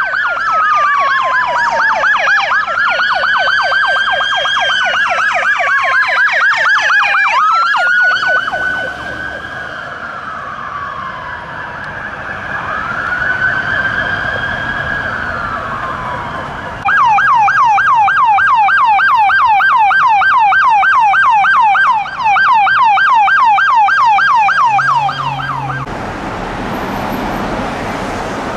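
Emergency-vehicle electronic sirens. A Sacramento Metro Fire battalion chief's pickup sounds a rapid yelp mixed with slower rising and falling wails, which fade to slow wails only. About two-thirds of the way in, a police SUV's rapid yelp starts abruptly, cuts off after about nine seconds, and gives way to traffic noise.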